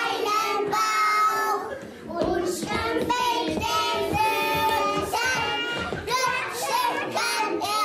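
Young children singing a song, with notes held for a second or so at a time.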